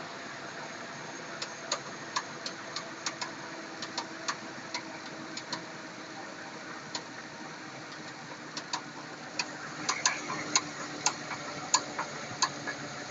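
GM 5.3 L L33 V8 engine running steadily with irregular sharp knocks, the engine knock the owner is showing. The knocks come in uneven clusters and grow louder and closer together near the end.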